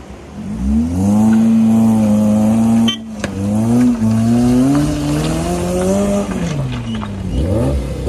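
Off-road vehicle engine running hard under load, its pitch holding and slowly climbing before easing off, with quicker revs near the end, as one vehicle pulls another on a tow strap to tow-start a Maruti Gypsy with a dead battery. A short sharp knock cuts in about three seconds in.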